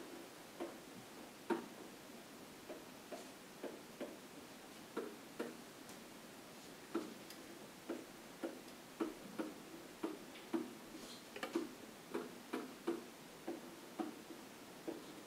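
A pen tip tapping and clicking against a whiteboard as letters are written: irregular sharp taps, one or two a second, some coming in quick pairs.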